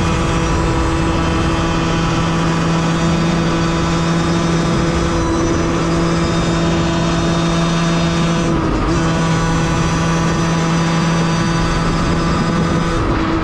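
Beta 50cc two-stroke engine running at steady high revs with a constant note, briefly dipping about nine seconds in, then the note dropping away near the end.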